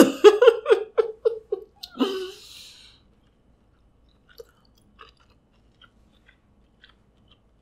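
A woman laughing, a string of short 'ha's that fades over about a second and a half, then a breathy exhale. After that she chews a bite of snow crab meat: faint, sparse chewing clicks.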